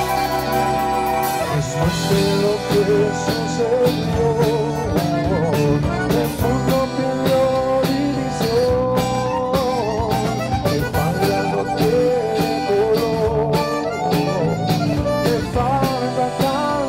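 Tejano band playing an instrumental passage: an accordion carries a quick, ornamented melody over bass and a steady drum beat.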